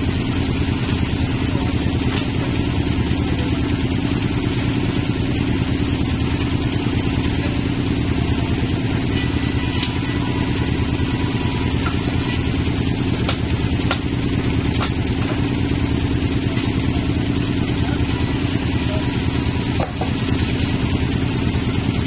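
Large vertical band sawmill running steadily with no log in the cut: an even machine drone with a low hum, and a few faint knocks.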